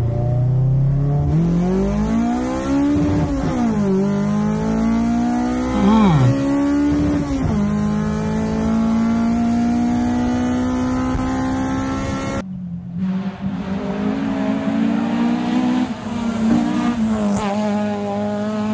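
Toyota AE86's 4A-GE four-cylinder engine revving hard through several gear changes as heard from the driver's seat, the pitch climbing and dropping sharply at each shift, with a lot of intake noise. About two-thirds of the way in it cuts to the car passing by, the note falling as it goes past near the end.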